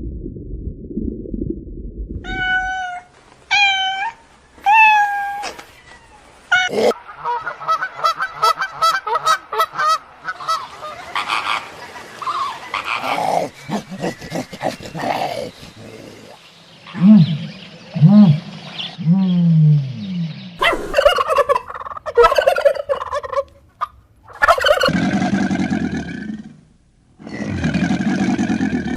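A run of different animal calls, one clip after another. Three short, high calls that fall in pitch come a few seconds in. A fast, pulsed stretch follows, then deeper calls and several more changes of call.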